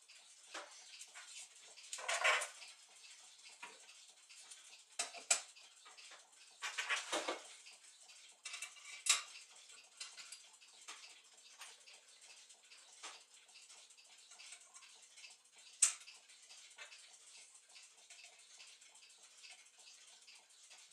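Brass wheels and arbors of a Gustav Becker tall clock movement clinking and scraping against the brass plate as the movement is put together by hand. The sound is a run of light scattered clicks and taps, with a few louder handling clatters.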